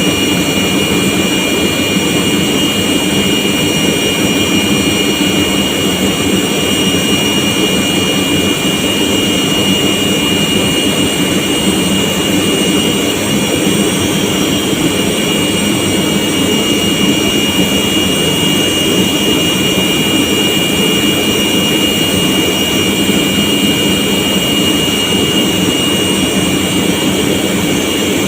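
Large electric industrial air compressor running steadily: an even, loud machine noise with a low hum and a steady high-pitched whine over it.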